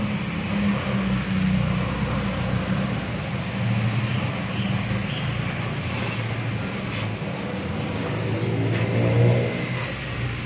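Gas welding torch flame hissing steadily as it heats and welds a car's exhaust muffler, with a steady low hum underneath.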